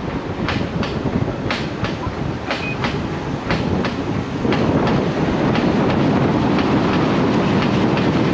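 Broken rear differential of a Lexus GX470 clicking rhythmically as the truck is driven, about two to three clicks a second over the rumble of the drive. About halfway through, a louder steady rumble takes over and the clicks fade.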